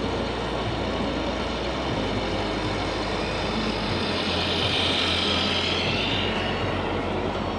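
Diesel truck engine sound from a radio-controlled scale model truck's sound unit, running at a low steady note that steps up and down in pitch, with a hiss swelling about halfway through.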